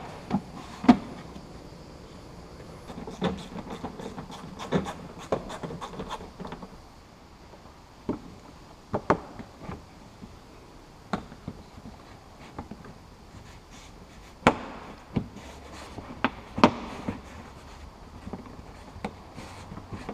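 Plastic wheel-arch liner and bumper trim of a car being pulled and flexed by hand, giving irregular sharp clicks and knocks of hard plastic, with some rubbing between them.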